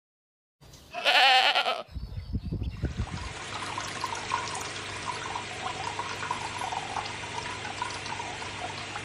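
A goat bleats once, a loud call about a second in. From about three seconds on, steady bubbling water of an aquarium runs.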